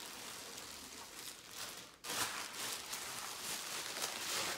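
Clear plastic wrap crinkling and rustling as it is pulled off a ventriloquist figure's head. It breaks off briefly about two seconds in, then comes back louder.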